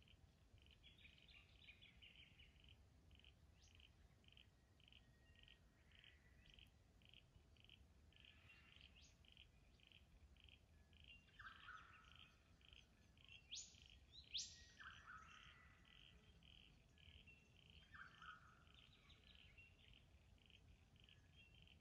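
Faint bushland birdsong: a small chirp repeating about twice a second throughout, with scattered bird calls over it. The loudest sounds are two quick rising whip-like calls about two-thirds of the way through.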